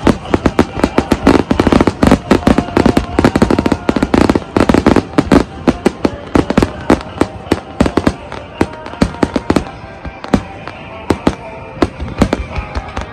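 Fireworks finale barrage: aerial shells bursting in rapid succession, dozens of sharp bangs and crackles overlapping, densest in the first half and thinning out toward the end.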